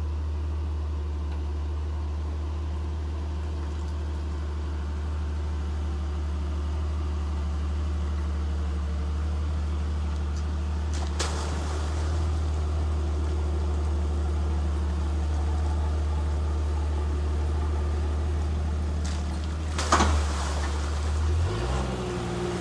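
Jeep Cherokee's engine running at low revs in a steady low rumble as it crawls down into a mudhole, with a sharp knock about halfway through and another near the end.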